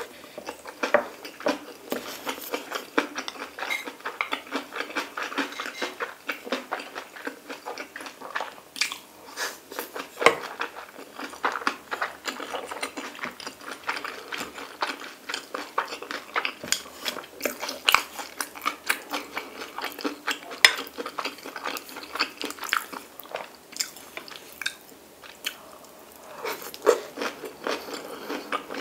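Close-miked chewing of a mouthful of stir-fried kimchi and pork belly: a steady run of rapid wet mouth clicks and smacks.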